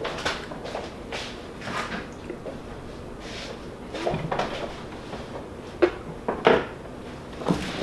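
Scattered light knocks and clatter of household handling, with three sharper knocks in the second half.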